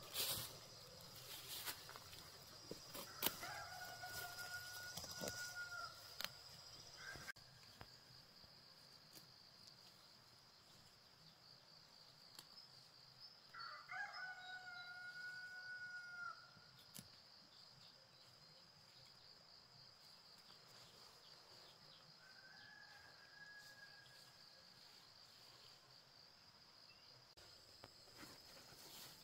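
A rooster crowing three times, each crow a long held call that drops at the end, the third one fainter. A steady high insect whine runs underneath, with a few knocks in the first seconds.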